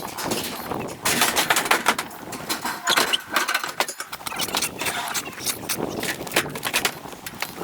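Sheep being worked in the yards: a rapid, uneven clatter of hooves and knocks as the ewes jostle.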